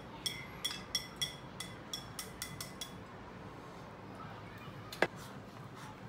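Chopsticks clinking and scraping against a porcelain plate as leftover sauce is scraped off it, in a quick run of ringing clinks over the first three seconds. About five seconds in comes one sharp, louder clink.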